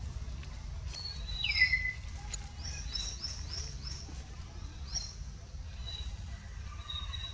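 Birds chirping in the trees. A loud whistle slides down in pitch about a second and a half in, then comes a quick run of short rising chirps, over a steady low rumble.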